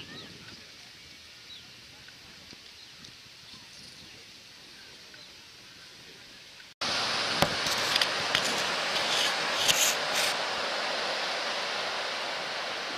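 A Nautique wakeboard boat running along a canal. At first only a faint outdoor background is heard. About seven seconds in, after an abrupt cut, a much louder steady rushing hiss of the boat's wake and motor takes over, with a few sharp knocks.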